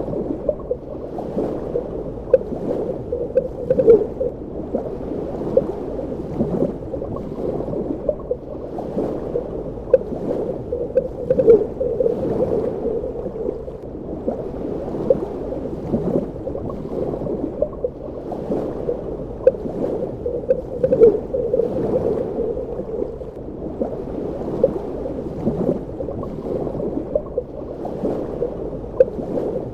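Underwater water ambience: a muffled, steady low rush of moving water with frequent small bubble pops and gurgles at irregular intervals.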